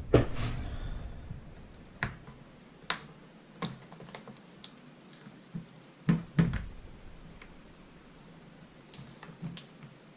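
Hands working on a laptop's screen assembly: scattered sharp plastic clicks and light knocks, with brief handling rustle around the louder ones.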